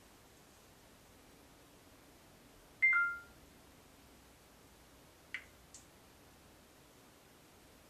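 A mobile phone gives a short two-note beep, high then lower, about three seconds in. A couple of faint clicks follow a little after the five-second mark, against quiet room tone.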